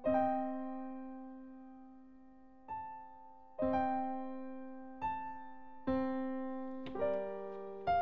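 Slow, sparse solo piano music: single notes and chords struck every second or two, each left to ring and fade before the next, coming a little closer together near the end.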